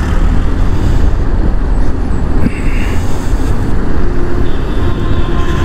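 Riding noise from a motorcycle in highway traffic: the bike's engine running steadily under a heavy, rumbling wind noise on the action-camera mic. Faint steady horn-like tones join about four seconds in.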